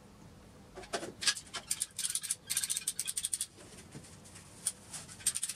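Quick runs of short, scratchy rubbing strokes from hands working on plastic PVC pipe: a dense run in the first half and another near the end.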